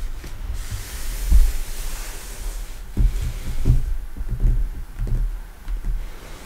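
Lace-gloved hands brushing and pressing on the paper pages of a large open book: a soft papery rustle early on, then a run of low, dull bumps between about three and five and a half seconds in.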